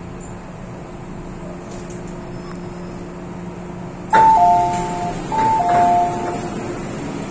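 Two-note high-then-low ding-dong chime from the M-Train's public-address system, sounded twice in quick succession about four seconds in. Underneath it, the steady hum of the moving train.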